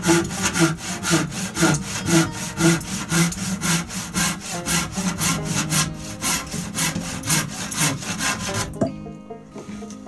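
Handsaw cutting through a wooden framing board in quick, even push-and-pull strokes, about four a second. The strokes stop about nine seconds in, ending with a sharp click as the cut finishes.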